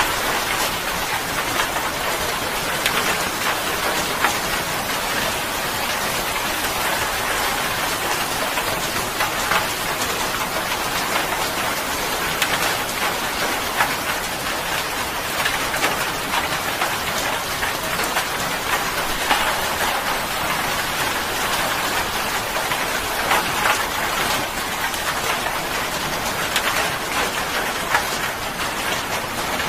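Steady rain falling, with sharper single drop hits standing out now and then.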